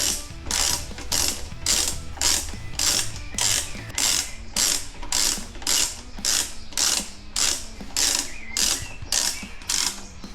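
Socket ratchet clicking on each back-swing, in an even run of strokes a little under two a second, as a bolt is wound in during reassembly.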